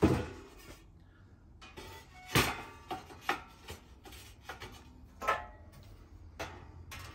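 Metal-and-ceramic clanks of a Monolith Smart Grid setup being rearranged: stainless steel grates, a steel drip tray and a ceramic deflector plate being lifted and set down in the metal frame. There is a sharp clank at the start, more about two and a half seconds in and around five seconds in, with lighter clicks and rattles between them.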